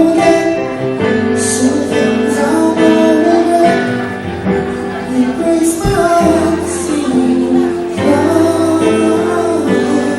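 Live acoustic band music with a voice singing over it.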